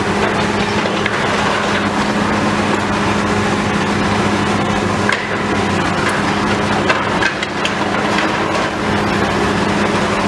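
Building demolition: a heavy machine's diesel engine runs steadily under scattered cracking and crunching as the structure and debris are broken up.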